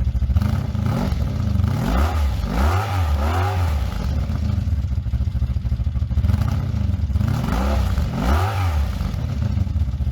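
An engine idling and revving in several blips, the pitch rising and falling with each rev.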